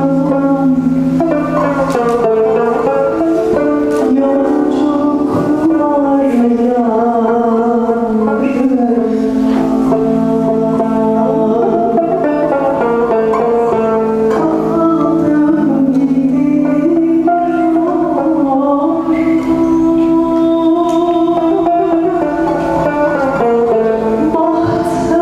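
Music: a held low drone under a slowly moving melody line.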